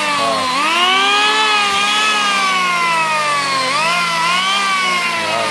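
Electric hand planer's motor and cutter drum running free on a test run, a loud whine whose pitch climbs quickly about half a second in, then slowly sags and climbs again near four seconds in.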